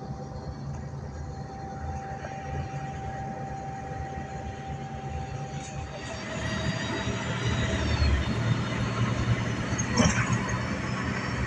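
Cabin noise inside a moving tour bus: steady engine and road rumble with a faint steady whine. It grows louder about halfway through, and there is a short knock near the end.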